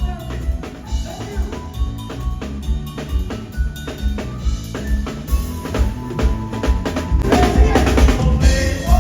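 Live band playing an instrumental passage of an upbeat song, the drum kit prominent over bass guitar and keyboard, with the playing growing fuller about seven seconds in.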